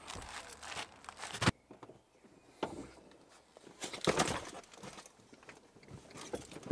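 Rustling of clothing and a bag and a few soft knocks as a person gets into a small hatchback and sets a bag down inside, the loudest handling about four seconds in.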